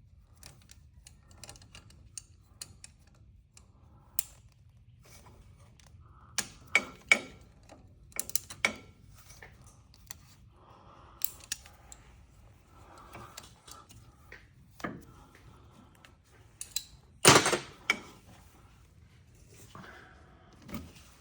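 Hand tools and metal parts clicking and clinking during suspension work under a vehicle, in scattered irregular taps with a louder metallic clank about 17 seconds in.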